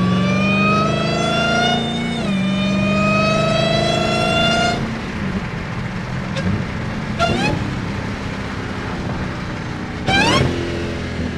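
Supercharged 6.2-litre HEMI V8 of a Dodge Challenger SRT Hellcat Jailbreak on a Stage 1 Direct Connection tune, heard from inside the cabin with the hood off, accelerating hard with its supercharger whine: the revs climb, drop at an upshift about two seconds in, climb again, then fall away near five seconds in as the throttle is lifted. Two short, quick rising revs follow, about seven and about ten seconds in.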